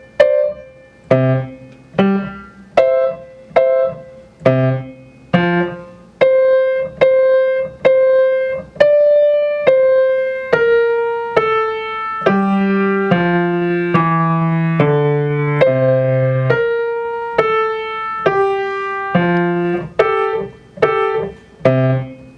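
Piano playing a simple beginner melody, mostly one note at a time to a steady moderate beat. The middle stretch has longer held notes, some with a low bass note underneath, and short notes return near the end.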